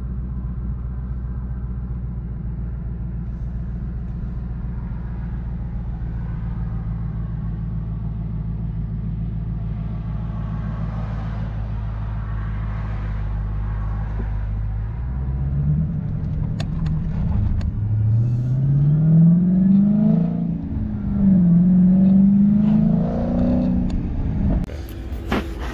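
Whipple-supercharged 6.4-litre 392 HEMI V8 of a 2018 Dodge Challenger T/A, heard from inside the cabin, running as a steady low drone while cruising. About fifteen seconds in, the engine is pushed harder and gets louder: its pitch climbs, drops as if at a gear change, and climbs again.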